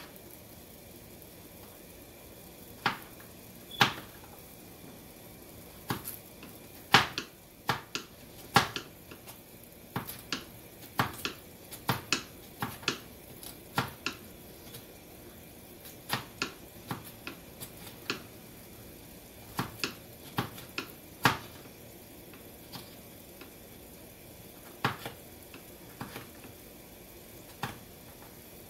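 Knife chopping raw papaya into small cubes on a cutting board: sharp, irregular knocks, most a second or less apart, over a faint steady hiss.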